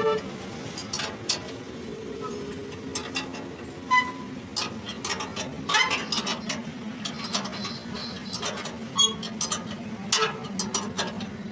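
Hand spanner clicking and clinking on a nut and the steel fittings of a truck's leaf-spring suspension: irregular metallic taps, with a brief ringing metal note about four seconds in, over a steady low hum.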